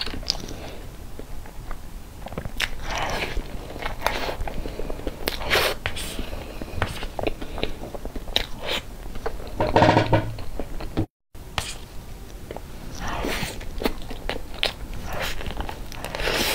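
Close-miked eating sounds: a mouth chewing and smacking on soft cream cake, with small clicks and taps as the fork cuts in and is brought to the mouth. The sound cuts out for a moment about eleven seconds in.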